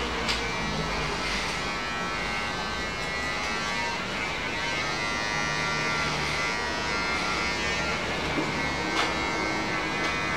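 Electric hair clippers buzzing steadily as they cut hair.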